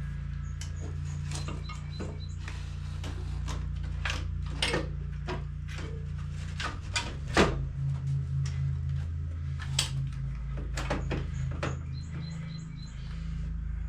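Repeated metal knocks and clunks of an electric motor being worked into a dirt bike frame, the loudest about halfway through, over background music with a steady low bass.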